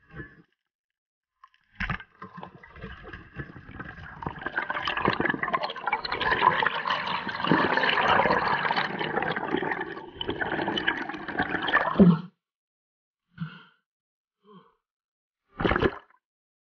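Underwater bubbling and gurgling from a diver's exhaled air bubbles streaming past the camera. It builds over about ten seconds, stops suddenly, and is followed by three short bubbly bursts.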